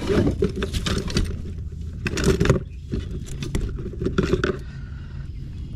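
Scraping and rattling while a freshly caught pike is being unhooked in a small boat: three bursts of clattering, near the start, about two seconds in and around four seconds in, over a steady low rumble.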